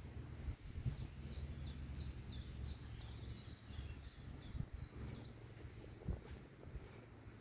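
A small songbird sings a series of about a dozen short, high, falling notes, about three a second, which stop about five seconds in. A low, steady rumble runs underneath.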